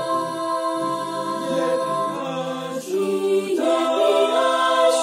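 A cappella voices singing a Chinese Christian morning hymn in held, sustained notes, moving to a new chord about three and a half seconds in.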